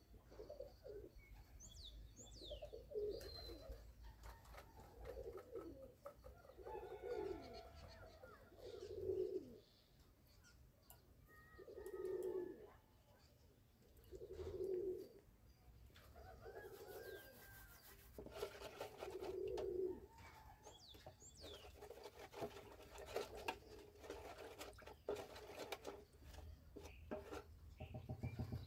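Doves cooing faintly, a low hoot repeating every two to three seconds, with thin chirps from small birds and scattered light clicks.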